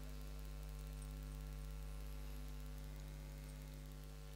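Steady electrical mains hum from the microphone and sound system: a low, even buzz with a stack of evenly spaced overtones.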